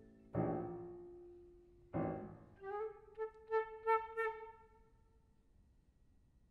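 Contemporary flute and piano duo: the piano strikes twice, each attack ringing and dying away, about a second and a half apart. Then the flute comes in on a held note, pushed in four quick accented swells, and fades, leaving a short quiet pause near the end.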